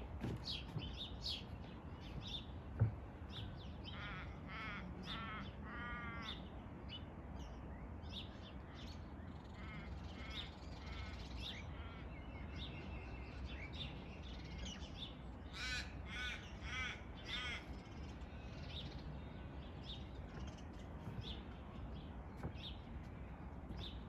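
Birds calling from a tree: harsh, crow-like caws in short runs of three or four, one run about four seconds in, another near the middle and a third about two-thirds of the way through, with faint high chirps scattered between.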